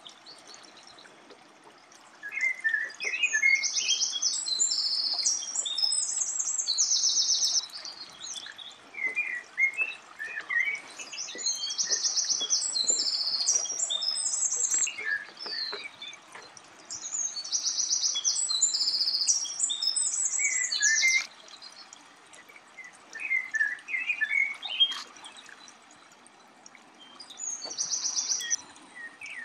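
A songbird singing long, high, rapid and complex phrases, repeated about five times with short pauses between, over a faint steady background hiss.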